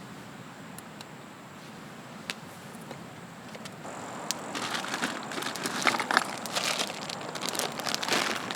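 Crinkly wrapping being handled: a few faint clicks, then from about four seconds in, louder irregular crinkling and crackling over a steady low hiss.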